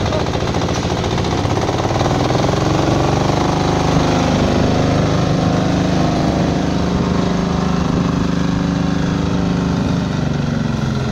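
Small engine of a ride-on manure scraper running steadily as the machine scrapes manure across a pen floor.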